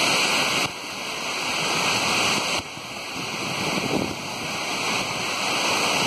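Steady rushing of a waterfall pouring into its pool. The level drops suddenly twice, about a second in and again near three seconds, then slowly builds back.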